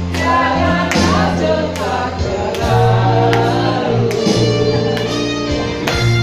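Live singing into microphones over amplified backing music with sustained bass notes and a steady beat.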